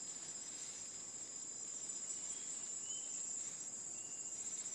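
Insects chirring in a steady, high-pitched, finely pulsing trill, with a few faint short high notes over it.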